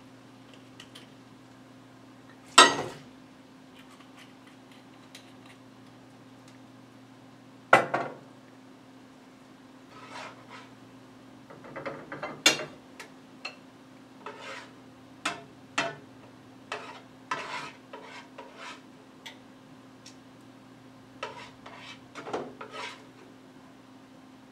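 A utensil clattering and scraping in a skillet and against plates as asparagus is tossed and served: two loud sharp knocks early on, then a run of smaller clinks and scrapes in the second half, over a steady low hum.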